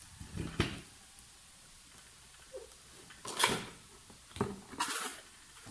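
Packaging being handled: a few short rustles and knocks, as of a cardboard box and its contents being moved and opened, in three separate bouts.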